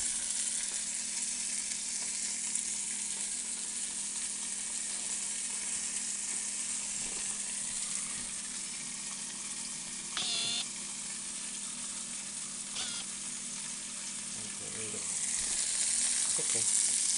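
Rabbit pieces sizzling as they brown in hot oil in an enameled cast-iron Dutch oven: a steady frying hiss that grows louder near the end. A brief high squeak comes about ten seconds in.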